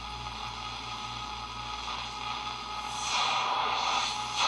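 Zenith K421W AM-FM radio on the AM band putting out static and hiss over a steady low hum, between stations while the dial is tuned. The static grows louder about three seconds in.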